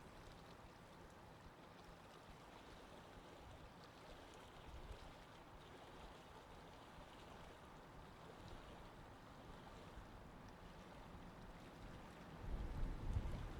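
Faint, steady wash of sea water. About a second before the end, a louder low rumble of wind buffeting the microphone gusts in.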